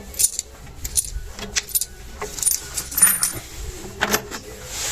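Irregular metallic clinks and light rattles of small loose screws being taken out of a washing-machine drum and handled.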